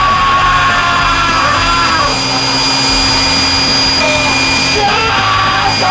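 An electric air blower runs steadily, inflating a giant balloon. A high, strained voice sounds over it at the start and again near the end.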